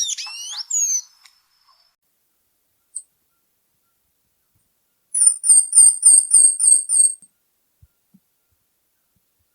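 Tanager calling: a run of gliding notes trailing off in the first second, a single short chirp, then a series of about eight quick, high, sharp notes over two seconds.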